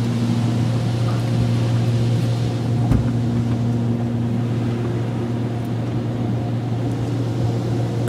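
Automatic car wash machinery heard from inside the car: a steady low hum with a hiss that dies down about two and a half seconds in, and a single knock about three seconds in.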